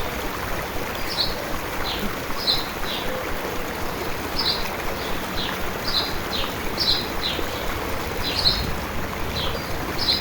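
A small stream running steadily, with a bird giving about a dozen short, high chirps scattered through it.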